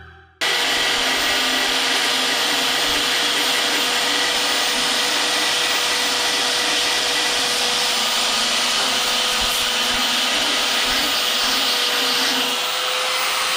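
Electric belt file (narrow-belt finger sander) running at full speed, its abrasive belt grinding down a weld seam in sheet-steel bodywork, with a steady motor whine under the grinding noise. It starts abruptly about half a second in and holds steady.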